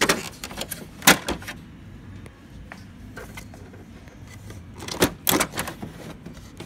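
Hard plastic clicks and clunks of a 107A toner cartridge being gripped and worked loose inside an HP LaserJet MFP 135a laser printer: a burst of clicks at the start, a sharp knock about a second in, and another cluster of knocks about five seconds in.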